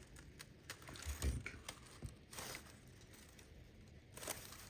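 Faint handling noise: light rustling and a few soft clicks and taps as an orchid plant and its packaging are handled, loudest about a second in, around two seconds and near the end.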